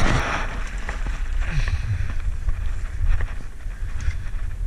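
Wind rumbling on the microphone, with a brief rustle at the start and a few small handling clicks.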